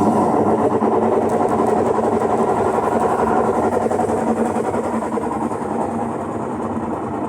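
Electrolux LT09E washing machine in its spin cycle, running with a loud, fast rattling grind that eases off slightly toward the end. The owner puts the noise down to the transmission (câmbio), which needs changing.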